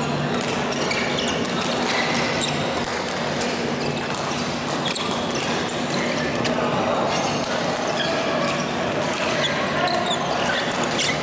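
Badminton rackets hitting shuttlecocks, with the play of several courts at once echoing in a large sports hall, and shoes squeaking on the court floor a few times. A steady low hum runs underneath.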